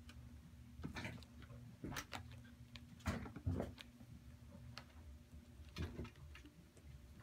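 Tonkinese kittens playing and scrambling: scattered light taps, thumps and scratches from their paws and claws on soft bedding, coming at irregular moments, with a faint steady low hum underneath.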